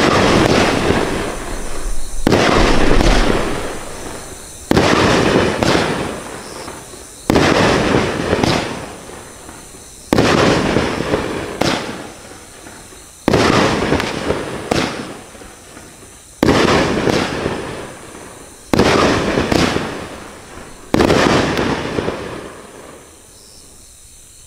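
Consumer fireworks cake, the 'Wild Wild Willows' 10-shot willow cake, firing its shots one after another. There are about eight loud bursts roughly every two and a half seconds, each fading away over a couple of seconds. The last one dies away near the end.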